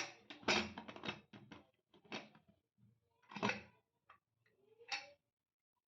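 Pressure cooker being opened: a quick run of light metal clicks and knocks as the lid is worked loose, then a few separate clanks.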